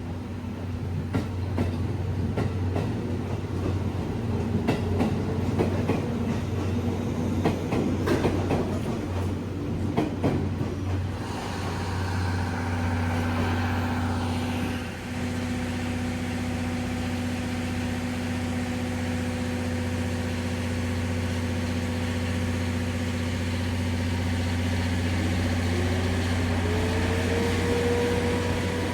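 A train moving slowly, its wheels clicking irregularly over rail joints and points for about the first ten seconds, then a steady hum of train machinery, with a tone that rises near the end.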